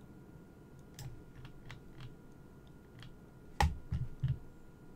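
Computer keyboard keystrokes: about eight irregular taps and clicks while a document is being scrolled. The loudest, about three and a half seconds in, has a dull low thud, and two more heavy taps follow quickly after it.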